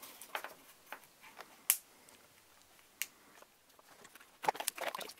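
Plastic ping pong balls snapping onto WS2811 LED pixels through drilled holes: a few spaced sharp clicks, the loudest about a second and a half in. Near the end, a quick cluster of light clicks and rattle as the strand of balls is lifted and they knock together.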